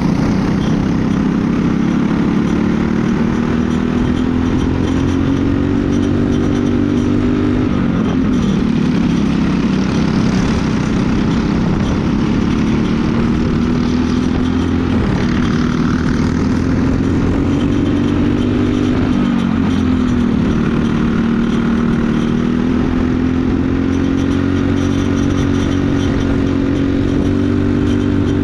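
Briggs & Stratton LO206 four-stroke single-cylinder kart engine running at racing speed, heard onboard. Its pitch climbs slowly, then drops sharply three times.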